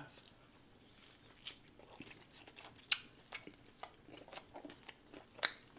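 Faint close-up chewing and crunching of fast food: scattered soft clicks and crunches, the sharpest about three seconds in and again near the end.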